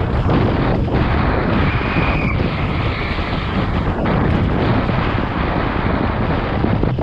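Wind buffeting a helmet-mounted camera's microphone and a downhill mountain bike clattering over a wet, rough dirt track at speed, a steady loud rush. A brief high squeal sounds about two seconds in.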